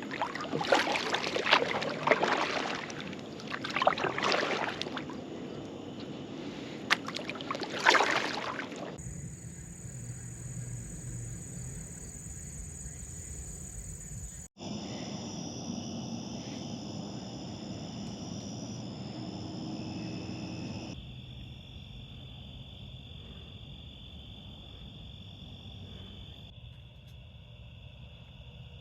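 Canoe paddle strokes splashing and dripping in lake water, an irregular stroke every second or so. After a few abrupt cuts, a steady high-pitched evening chorus of crickets and other insects.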